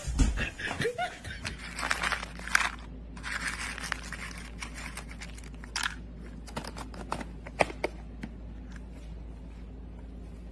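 A clear plastic cup being handled, with a few pieces of dry pet kibble rattling inside: irregular scraping and rustling, then scattered sharp clicks, over a steady low hum.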